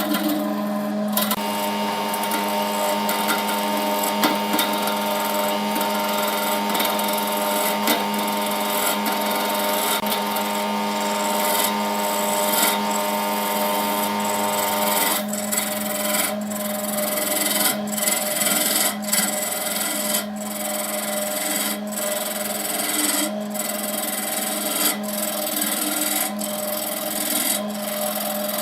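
Wood lathe running with a steady motor hum while a tool works the spinning wood-and-epoxy blank, a rough scraping, rasping sound over the hum. About halfway through the contact turns patchier, in short, uneven strokes.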